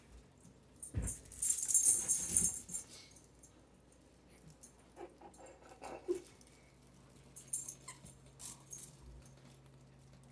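Dog's squeaky toy squeaked in quick, high-pitched bursts, loudest about a second in and again near the end.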